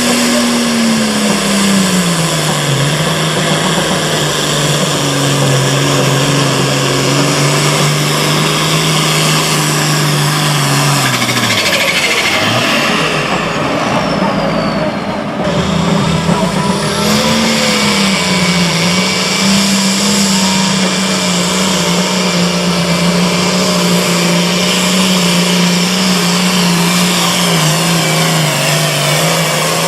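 Turbocharged diesel engine of a super farm class pulling tractor running hard under load through a pull. About twelve seconds in the engine note sags and a high whistle falls away, then it picks back up strongly at about sixteen seconds and runs steadily to the end.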